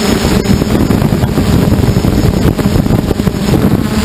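Electric motors and propellers of an FPV aircraft heard from its onboard camera. The steady hum breaks up into rough, fluttering wind buffeting on the microphone as it dives toward the ground and pulls up level.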